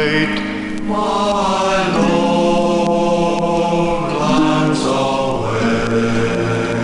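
Background music: voices singing long held notes in a chant-like style, gliding from one note to the next about every second or two.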